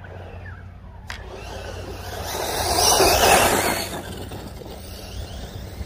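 Arrma Typhon 6S RC buggy's brushless motor and tyres running over grass, growing louder for about two seconds midway as it speeds up, then fading as it pulls away.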